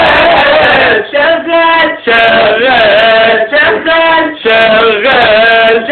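A man singing loudly in Egyptian Arabic, with long held, wavering notes broken by short pauses for breath.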